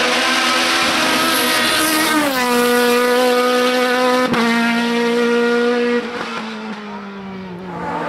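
Engine of an open-cockpit sports prototype race car on a hill climb. The revs drop sharply about two seconds in as it slows into a hairpin, then hold steady through the turn, with a single sharp crack about four seconds in. Near the end the sound falls away and its pitch slides down as the car moves off.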